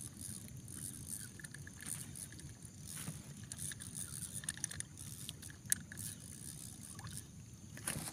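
A hooked fish being reeled in on a spinning rod from a small boat, the fish splashing at the surface: a low steady rumble with a few sharp clicks and splashes, about three seconds in, just before six seconds and near the end.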